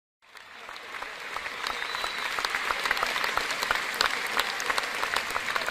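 Crowd applause, many hands clapping, fading in about a quarter second in and building to a steady level.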